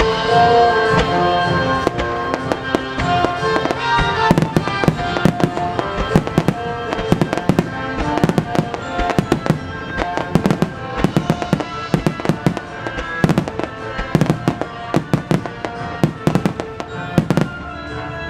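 Starmine fireworks display: a rapid, continuous string of shell and mine bursts, several sharp bangs a second, over music playing.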